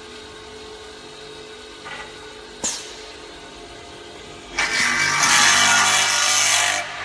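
Aluminium multi-head drilling machine: the drill motors hum steadily, with a sharp click a little before three seconds in. Then, about four and a half seconds in, comes a loud rushing, screeching noise for about two seconds as the drill heads feed into the aluminium profile, and it stops abruptly.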